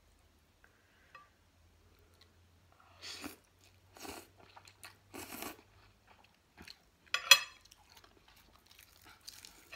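A woman slurping khao pun rice noodles in three noisy slurps, then a sharp clatter of a spoon set down on a plate, the loudest sound, then chewing.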